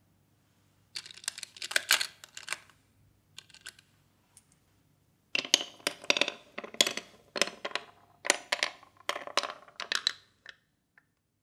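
Marbles rolling and clacking through a wooden block marble run: clusters of quick hard clicks and knocks, a first flurry after about a second, a few stray clicks, then a denser run of clacks from about halfway that stops shortly before the end.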